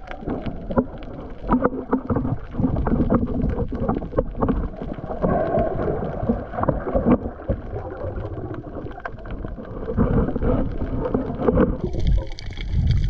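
Muffled underwater water noise around a swimming diver: a low rumble of moving water dotted with frequent small clicks and knocks. Near the end a brighter hiss comes in.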